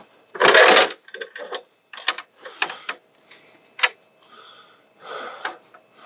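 A ladder being handled and set up: a loud rattle about half a second in, then scattered clicks and knocks, with one sharp click near the 4-second mark.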